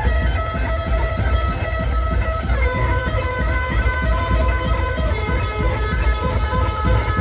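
Loud live noise rock from a bass-and-drums duo: a heavily distorted electric bass played like a guitar over fast, pounding drums.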